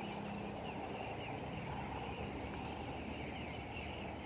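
Outdoor garden ambience: a steady background hiss with faint high chirping throughout and a few soft clicks.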